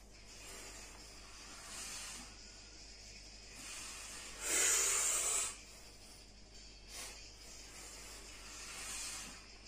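A man breathing hard through repetitions of a seated barbell overhead press: short hissing breaths every second or two, with one loud, forceful exhalation lasting about a second midway through as he drives the bar up.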